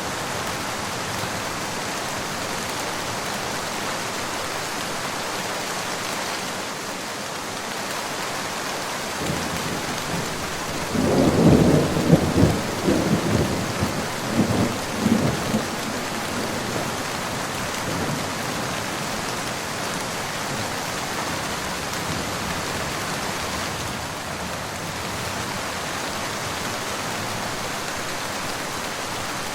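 Steady rain falling. About ten seconds in, a rolling clap of thunder breaks in with several sharp cracks and rumbles for around six seconds, then fades back under the rain.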